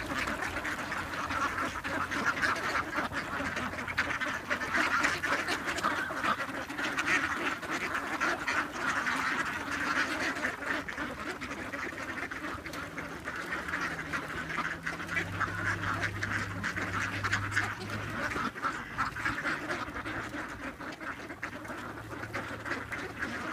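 A large flock of mallards and white domestic ducks quacking all at once in a dense, unbroken chorus as they crowd around to be fed.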